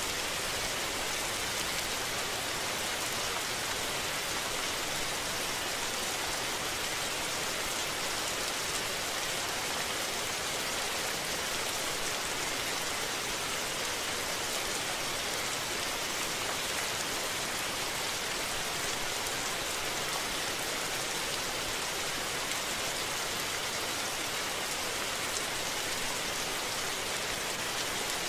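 Steady rain falling, an even hiss with many fine drops and no change in strength.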